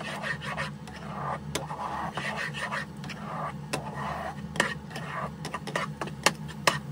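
A spatula scraping around a wok as egg is stir-fried into small curds, with frequent sharp clicks of the spatula against the pan. A steady low hum runs underneath.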